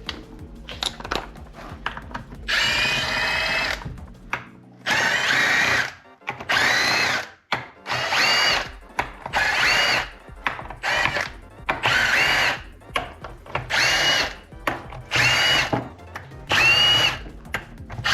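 Power drill spinning a 12 mm socket on an extension, backing out bolts in about eleven short bursts. Each burst is a motor whine that rises as it spins up and then holds briefly.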